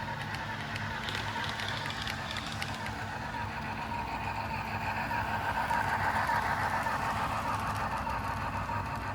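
Model Athearn FEF 4-8-4 steam locomotive running slowly, its onboard sound system giving a steady steam-engine sound over the noise of its motor and wheels. The sound swells a little about halfway through.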